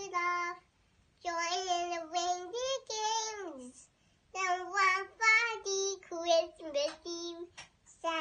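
A young child singing a song alone, unaccompanied, in phrases of held notes, pausing briefly twice.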